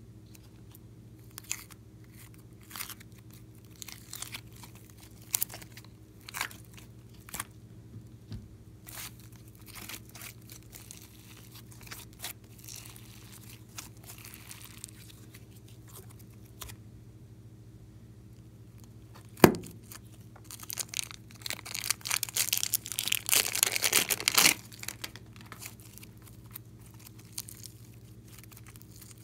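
Hands squishing, folding and stretching glossy slime, giving scattered sticky clicks and pops. One loud sharp click comes about two-thirds of the way through, and a dense run of crackling and tearing sounds follows shortly after.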